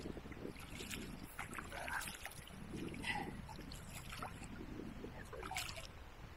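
Water sloshing and gurgling around a kayak, with scattered short knocks and clicks.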